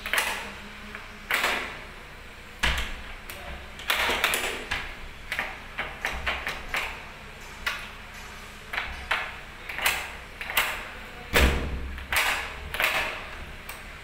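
Godrej Ultra XL+ Twinbolt metal rim lock worked by hand: repeated, irregular metallic clicks and clacks as the knob is turned and the bolts shoot out and draw back. A few heavier knocks with a low thud are among them, the loudest near the end.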